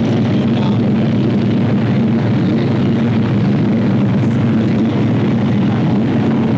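A steady low engine drone, unchanging in pitch and level.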